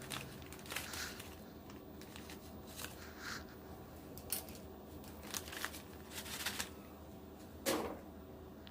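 Scattered light clicks and rustling as hands handle a PC power supply, its screws and packaging, with one louder knock near the end.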